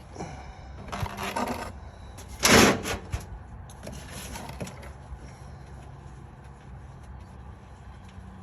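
Scraping and rustling handling noises from work under a car: a few short bursts, the loudest about two and a half seconds in, then only a low steady background.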